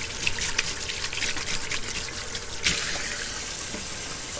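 Kitchen sink tap running while hands are washed under it, with water splashing. A single sharp clack stands out about two-thirds of the way through.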